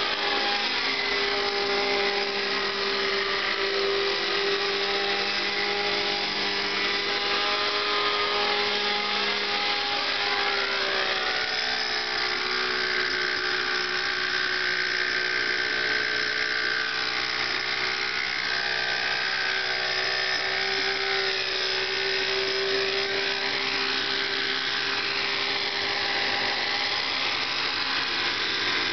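Thunder Tiger Raptor 50 RC helicopter's two-stroke nitro glow engine running at steady high revs as the helicopter hovers and manoeuvres, a high whine whose pitch wavers slightly.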